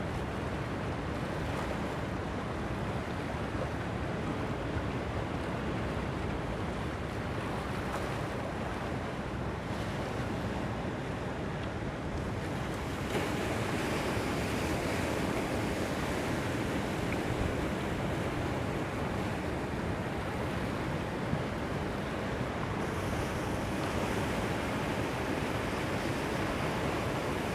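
Rough sea surf washing in steadily, with strong wind buffeting the microphone; the rush grows louder about a third of the way in.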